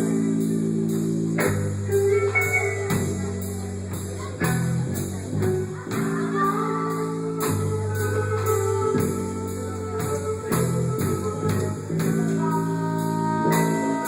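Live band music: guitar and a steady drum beat, with a melody line over sustained bass notes.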